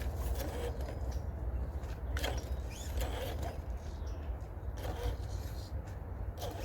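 Scattered knocks and scrapes of an RC crawler truck working over wooden course obstacles, over a steady low rumble.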